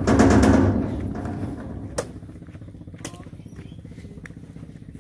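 A vehicle engine running, loud at first and fading within about a second and a half. Then three sharp knocks, about two, three and four seconds in, from the steel hook of a loader's pole striking oil palm fruit bunches.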